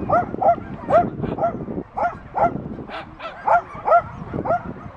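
A dog barking in quick, high-pitched yaps, about three a second, without a break.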